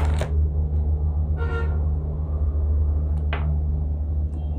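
Steady low hum, with a few sharp knocks and rustles as cardboard packaging is handled, and a short pitched tone about a second and a half in.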